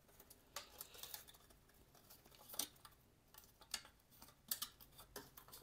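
Faint, scattered clicks and crinkles of a thin, flexible plastic plant pot being handled and fitted around a branch.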